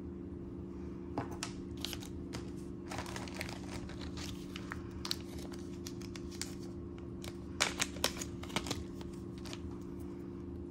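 Wrapping being crinkled and handled as a piece of jewelry is unpacked: scattered soft rustles and small clicks, with a busier cluster about three-quarters of the way through, over a steady low hum.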